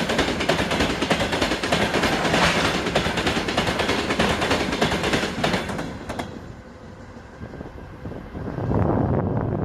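Train wagons rolling past close by, their wheels clattering rapidly over the rail joints; the clatter drops away about six seconds in as the end of the train goes by. A low rumble rises again near the end.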